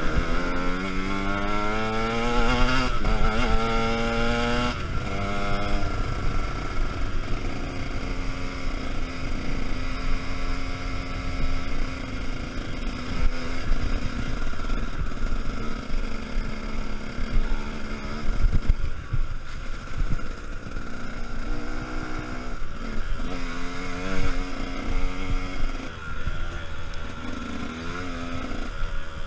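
Enduro dirt bike engine on a trail ride, accelerating hard with its pitch climbing through the gears in the first few seconds, then running at lower, varying revs with more short bursts of throttle near the end.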